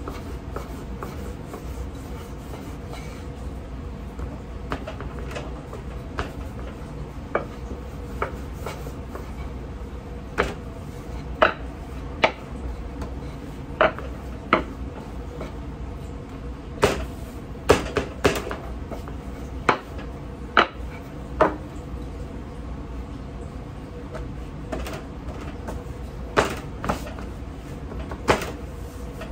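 Sharp wooden knocks and clacks of a thin rolling pin against a wooden board as dough is rolled out, at irregular intervals and more often in the second half, over a steady low hum.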